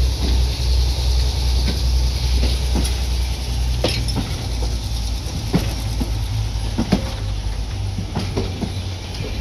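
Railroad passenger coaches rolling slowly past at track level: a steady low rumble with irregular clicks and knocks as the wheels pass over the rail joints.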